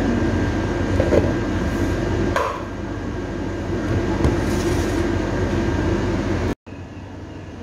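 A steady machine hum, with a few light knocks and clatter as wrapped fish are set into a cooking pot. The deepest part of the hum drops away about a third of the way in, and the sound cuts out abruptly for a moment near the end.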